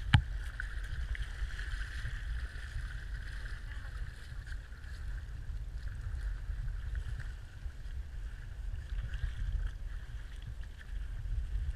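Wind buffeting the camera microphone in an uneven low rumble over a steady higher hiss, with one sharp click just after the start.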